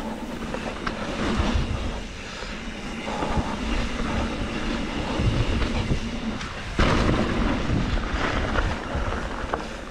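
Trek Slash 7 full-suspension mountain bike riding fast down a dirt flow trail: tyres rumbling over the dirt and the bike rattling, with wind buffeting the action camera's microphone. A sharp thump about seven seconds in.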